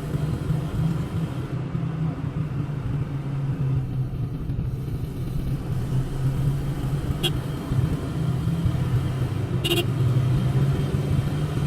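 Steady low engine and road drone inside the cabin of a moving Honda City, with two faint clicks, one about seven seconds in and one near the end.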